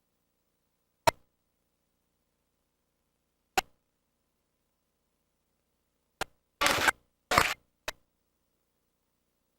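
Faulty soundtrack cutting in and out: dead silence broken by short snatches of sound, once about a second in, again about three and a half seconds in, then a cluster of four close together near the end.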